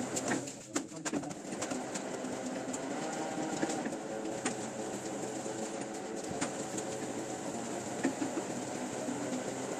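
Printing-press machinery running with a steady mechanical drone, with a few sharp clicks scattered through it.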